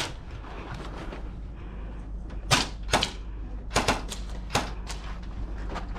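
Airsoft gas blowback guns firing: about six sharp snapping shots at uneven intervals, starting about two and a half seconds in, over a steady low background.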